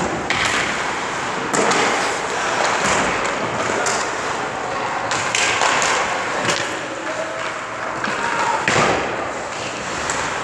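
Hockey skate blades scraping and carving on rink ice, with a series of knocks from pucks and sticks striking the ice, goalie pads and boards; the loudest knock comes near the end.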